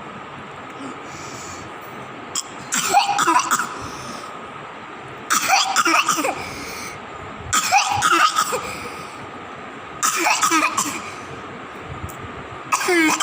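A baby coughing in five bouts, about one every two and a half seconds. It is a persistent cough of a month's standing that has not cleared with medication and whose cause is undiagnosed.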